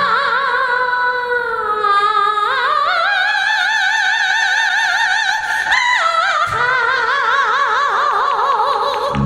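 A woman sings through a microphone, holding long, high notes with a wide vibrato and stepping up to a higher note partway through, over a faint backing track.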